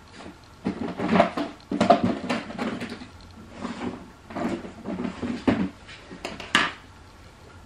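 Irregular knocks, taps and rustles close to the microphone, about a dozen over several seconds, dying away near the end.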